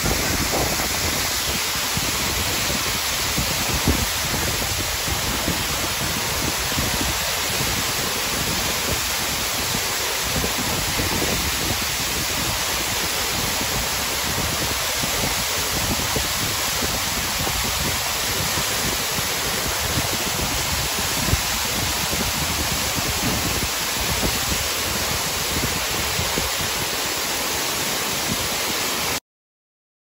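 Waterfall plunging down a rock face: a steady, dense rush of falling water that cuts off suddenly near the end.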